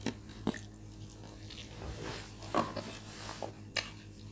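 Rushed eating of rice and beans: spoons clicking against plates, with chewing. A few sharp clicks stand out, about half a second in, two and a half seconds in, and near the end.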